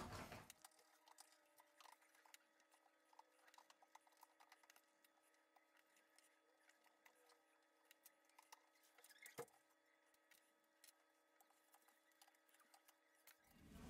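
Near silence: a faint steady hum with scattered faint ticks, and one small click about nine seconds in.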